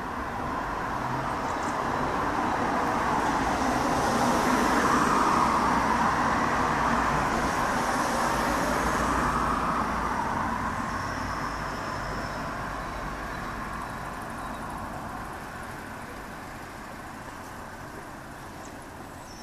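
A vehicle's steady rushing noise, swelling to a peak about five seconds in and fading away slowly.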